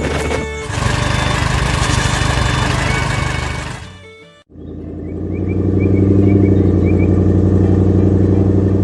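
Background music with sound effects fades out about four seconds in, then a steady engine hum fades in: a cartoon vehicle's engine running as it drives.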